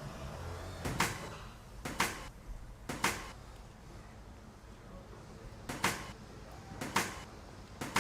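Six sharp knocks on wood, one about every second, in two groups of three with a pause between them.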